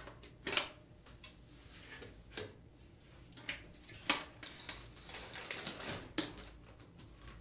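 Scattered light clicks and taps, one every second or so, with faint rustling between them.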